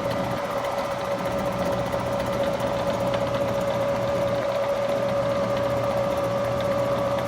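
A machine running with a steady hum and a fast, even flutter, starting abruptly just before and holding steady throughout.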